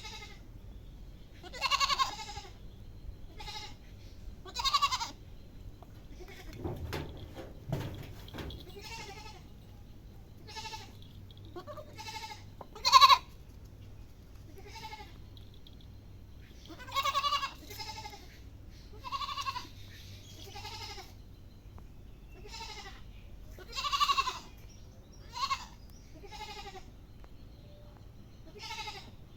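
Goat bleating over and over, short bleats every second or two, the loudest about thirteen seconds in.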